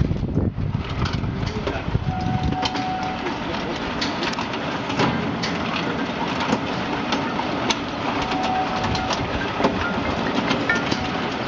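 Stainless steel double mesh belt conveyor of a continuous deep fryer running, a steady mechanical clatter with many irregular metallic clicks.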